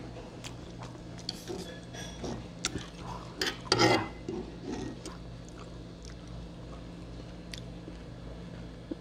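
Metal fork and knife clicking and scraping on the dish while cutting food, in scattered short strokes, loudest about four seconds in, over a steady low hum.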